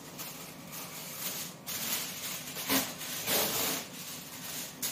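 Packaging being handled off-camera: irregular rustling and crinkling, with short louder bursts between about two and four seconds in.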